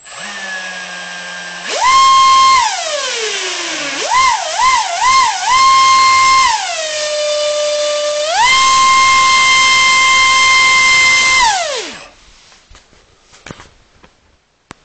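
Align 430XL brushless motor spinning a 4.5 x 3.5 propeller on a 3-cell lipo, its whine rising and falling with the throttle: a low hum, a jump to full speed, a slow slide down, three quick throttle blips, then full speed with a dip in the middle. It winds down about twelve seconds in, followed by a few faint clicks.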